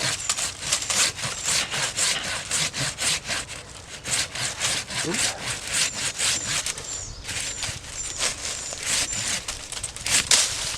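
Hand saw cutting through the green trunk of a small tree in quick back-and-forth strokes, about three to four a second, pausing briefly twice.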